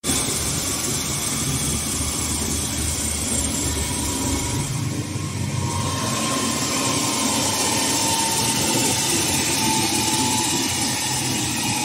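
HS1300 plastic film slitter rewinder running, slitting clear film with its pneumatic knives and winding it onto the rolls: a steady mechanical whir. A faint high whine comes in about halfway and holds.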